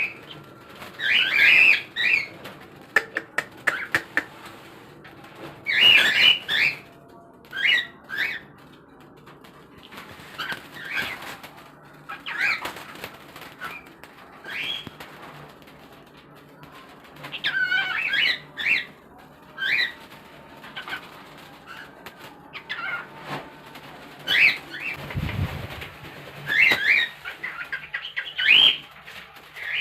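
Pet cockatiel chattering and making scratchy, warbling calls in short bursts with pauses of a second or more between them. A dull low thump about 25 seconds in.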